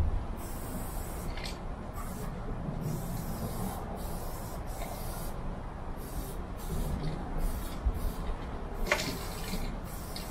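Aerosol spray paint can hissing in about ten short bursts with pauses between them, some brief and some about a second long.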